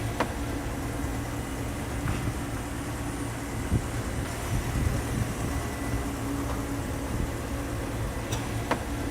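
Car factory inspection-line ambience: a steady low machinery rumble with a faint constant hum, and a few sharp clicks or knocks.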